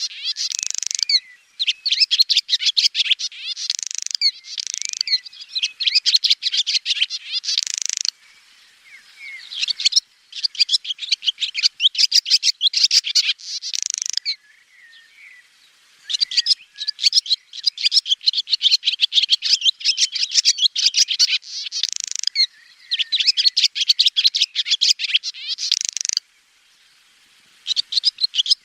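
Swallow twittering: fast runs of high, clicky chirps and trills that come in bursts of a few seconds, with brief pauses between them.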